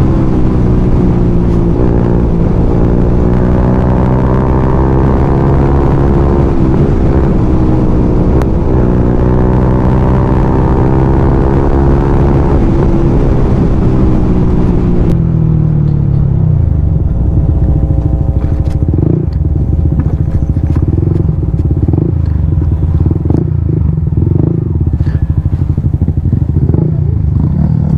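Yamaha motorcycle engine running at road speed, its pitch rising and falling with the throttle, then dropping sharply about fifteen seconds in as the bike slows to a lower, steadier note. Over the last stretch, knocks and rattles come from the bike riding over a rough dirt road.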